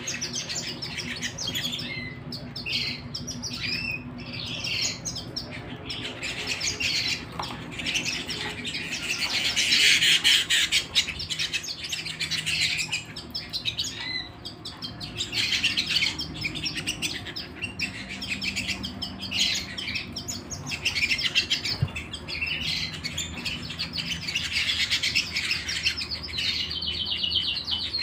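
Domestic canary singing a continuous song of fast trills and rapid rolls, loudest about ten seconds in, over a faint steady low hum.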